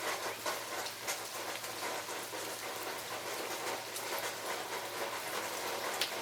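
Steady rain falling, an even hiss dotted with many small ticks of drops striking close by, with one sharper tick near the end.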